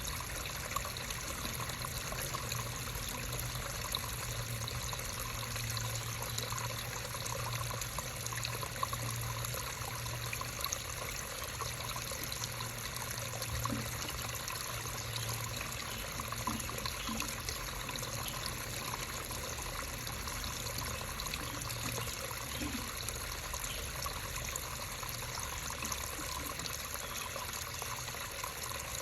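Creek water trickling and babbling steadily, with a steady low hum underneath.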